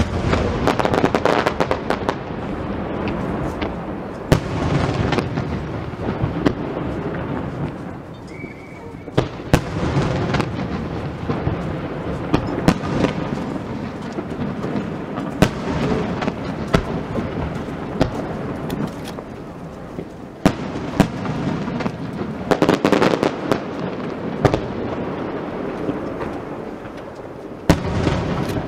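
Aerial fireworks display: shells bursting with sharp bangs in quick succession over a continuous crackle, with denser, louder volleys at the start, around ten seconds in and again near the end.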